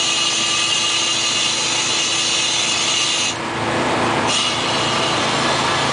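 Mars 700 hovercraft's engine and lift/thrust fans running steadily at speed, a loud droning whine with several steady tones, heard from inside the cabin. About three seconds in, the high whine drops away for about a second, then returns.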